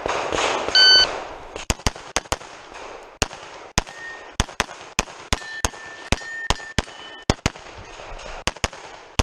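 A competition shot timer beeps once, about a second in, and then pistol shots follow in quick pairs and singles, about twenty in all, roughly two to three a second, as the shooter runs the stage.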